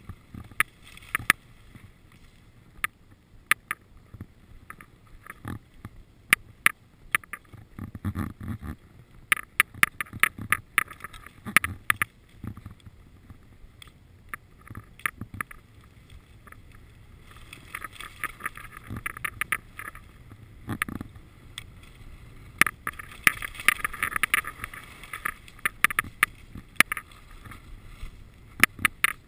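Skis sliding and carving on packed snow during a downhill run, with frequent sharp clicks and knocks throughout. The scraping grows louder and denser in two stretches, in the second half.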